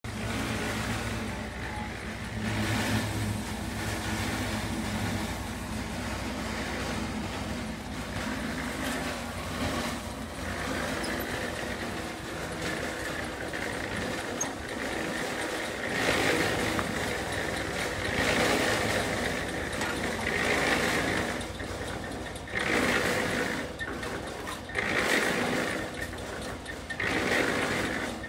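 An engine running steadily, then repeated scraping of steel trowels through wet cement mortar as a wall is plastered, in irregular strokes about a second long.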